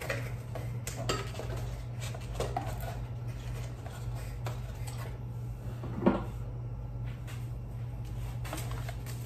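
Scattered clinks and knocks of candle jars, tins and bottles being handled and set into packing boxes, the loudest knock about six seconds in. A steady low hum runs underneath.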